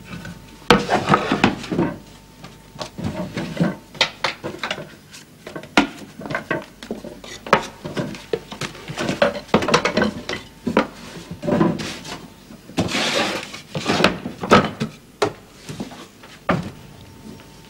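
Clatter of handling a loose wooden floorboard and cutlery: wooden knocks and scrapes as boards are lifted and set back, mixed with the clink of metal forks. There is a longer scrape about thirteen seconds in.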